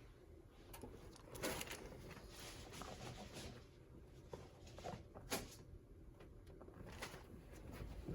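Faint rustling and handling sounds with a few soft taps, the clearest about a second and a half in, and others past five and at seven seconds.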